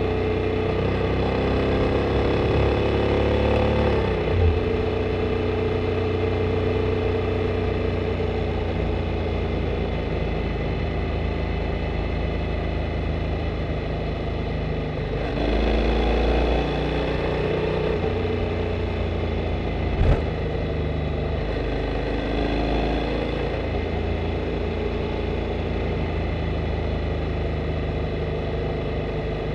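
Honda Integra NC750D's parallel-twin engine running, heard from a microphone under the seat. Its pitch rises and then drops about four seconds in, and there is one brief sharp knock about twenty seconds in.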